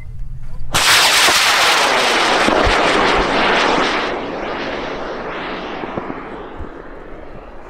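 Aerotech K375 solid rocket motor of a high-power rocket lifting off: a sudden loud rushing roar begins about a second in, holds for about three seconds, then fades and grows duller as the rocket climbs away.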